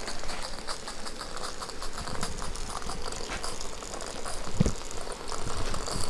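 Small irregular clicks and taps from a Gauge 1 live steam model locomotive being handled on metal track, over a steady faint hiss, with one sharper knock about four and a half seconds in.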